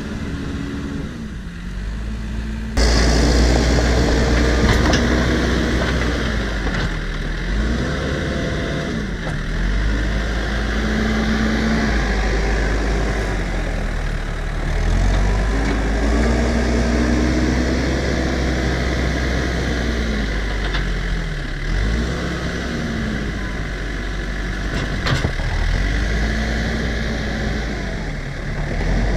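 Diesel engine of a New Holland B95 backhoe loader working under changing throttle while it levels dirt with its front bucket. The engine note dips and climbs again every few seconds as the machine pushes forward and backs up. The sound gets abruptly louder about three seconds in.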